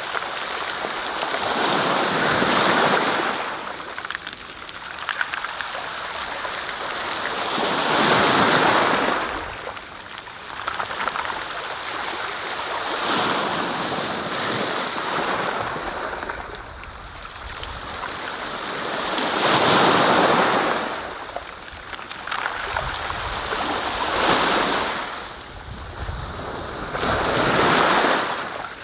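Waves breaking: a rushing wash of water that swells and fades about six times, every four to six seconds.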